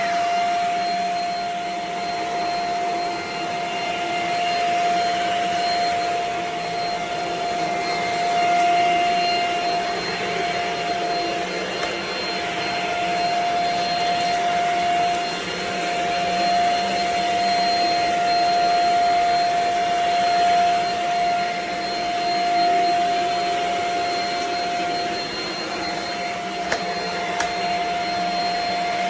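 Shark HV322 Rocket Pet Plus corded stick vacuum running: a steady motor whine over a rush of air, its level rising and falling gently.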